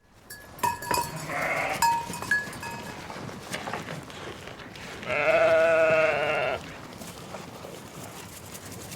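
Sheep bleating: a short bleat about a second in, then one long, wavering baa about five seconds in.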